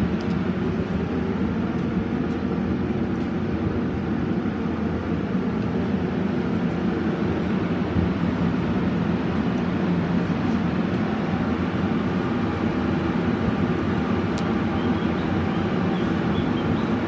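Ro-ro passenger ferry's engines running steadily at berth: a constant low drone carrying several steady tones, with a hiss above.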